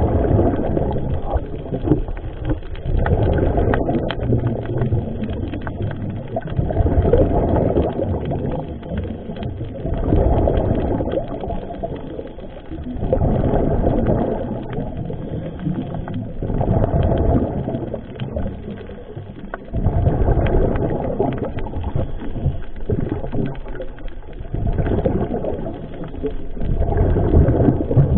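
A scuba diver breathing through a regulator underwater: bursts of exhaled bubbles rumble and gurgle about every three to four seconds, with quieter inhalation gaps between.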